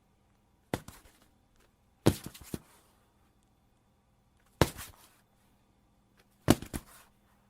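Body-fall sound effects: four separate heavy thuds, each a sharp hit followed by one or two smaller knocks as the body settles.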